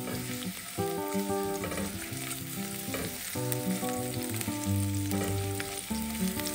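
Sliced garlic sizzling and crackling in hot oil in a ceramic non-stick frying pan, stirred with a silicone spatula. A soft melody of held notes plays underneath.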